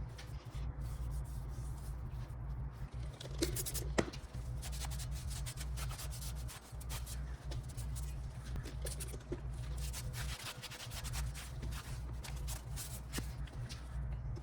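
Irregular rubbing and scraping with scattered light clicks and one sharp knock about four seconds in, over a steady low hum.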